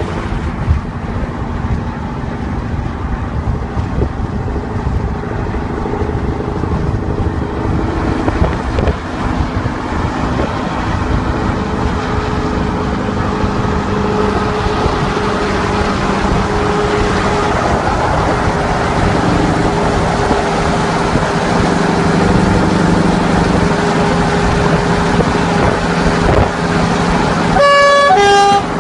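Road and engine drone heard from inside a moving car, growing louder as it draws alongside a Scania V8 truck. Near the end a loud horn sounds two notes, one straight after the other, about a second in all.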